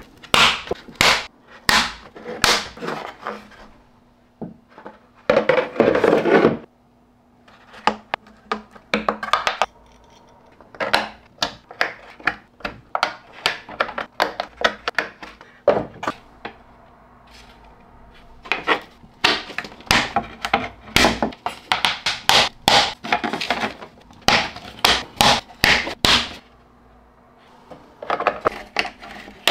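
3D-printed PLA enclosure parts being fitted together by hand: repeated plastic clicks, taps and knocks as clips snap onto the buckets and panels, with a brief scrape about six seconds in.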